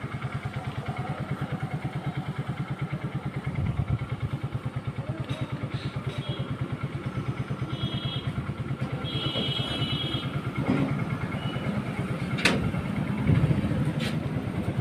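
Motorcycle engine idling with a steady rapid low pulse, with a couple of sharp clicks near the end.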